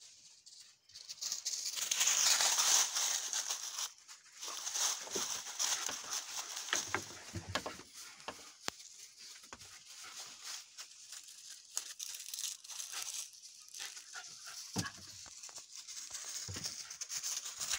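Dry fallen leaves crunching and rustling as someone walks through deep leaf litter, beginning about a second in and going on unevenly.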